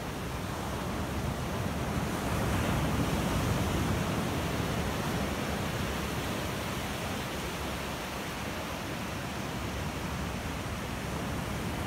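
Ocean surf breaking and washing up a sandy beach: a steady rushing noise that swells a little a few seconds in, then eases.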